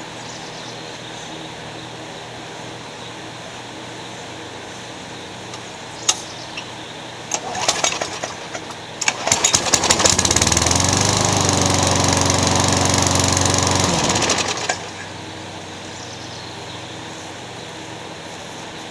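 Briggs & Stratton Quantum 6 hp lawn mower engine being pull-started: a few pulls on the recoil, then it catches about nine seconds in. It runs steadily for about five seconds, then is shut off and winds down.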